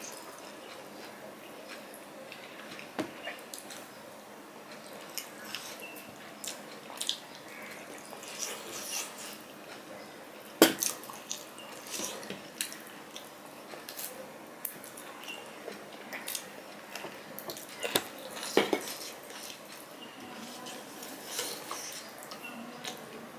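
Eating by hand from a stainless steel plate: fingers scraping and mixing curry against the metal, with wet mouth sounds of chewing and finger licking. Scattered sharp clicks and ticks run through it, the loudest about ten seconds in and again around eighteen seconds.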